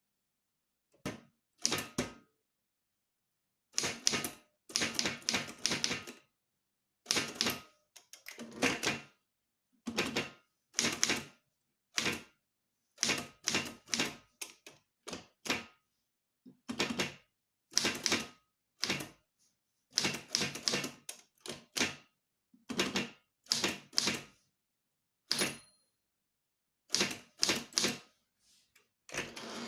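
Manual English typewriter keys being struck in quick short runs, each run a cluster of sharp clacks, with pauses of about a second between runs as a statement is typed.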